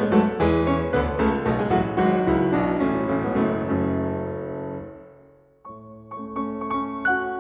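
Piano music: a flowing run of notes that fades away about five seconds in, then a quieter, sparser passage begins.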